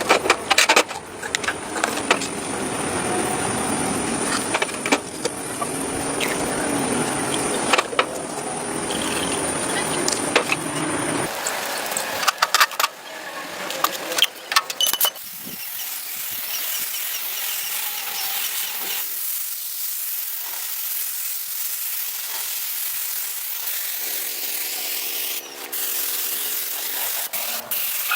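Scraping and clicking workshop hand-work noise, then after a few knocks a steady high hiss of air that sets in about halfway through and runs on.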